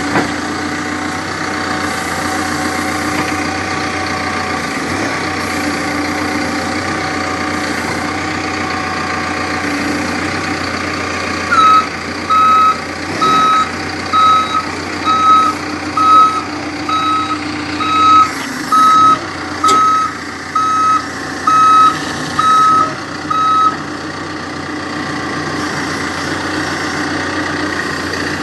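Backhoe loader's diesel engine running steadily. Partway through, its reversing alarm sounds about a dozen single-pitched beeps, roughly one a second, as the machine backs up, then stops.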